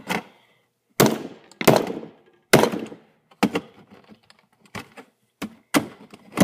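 A series of sharp, irregularly spaced knocks and clacks from a router's plastic casing as it is forced and pried apart.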